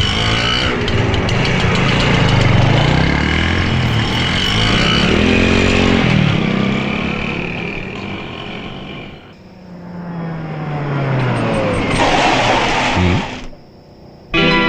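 Motor vehicle engines revving and passing, their pitch sliding up and then falling away. A rushing swell builds near the end and cuts off abruptly.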